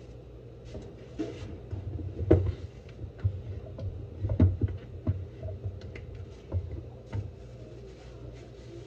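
Irregular soft thumps and knocks of kitchen handling, the loudest about two and four and a half seconds in, over a steady low hum.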